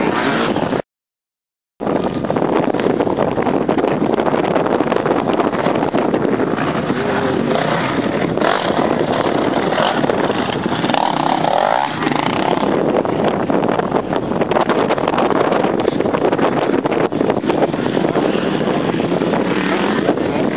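Dirt bike engines revving as riders pass close by. The sound cuts out completely for about a second near the start.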